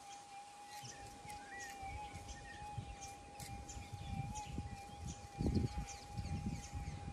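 Gold-prospecting metal detector's steady threshold tone, held at one pitch with no target signal. Low rustling of dirt handling comes and goes, loudest about five and a half seconds in, and faint bird chirps sound in the background.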